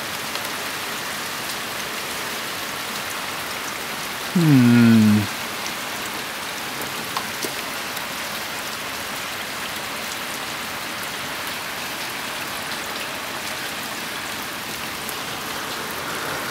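Heavy rain falling steadily: a dense, even hiss of rain on surfaces. About four seconds in, a short, loud sound falling in pitch cuts over it for about a second.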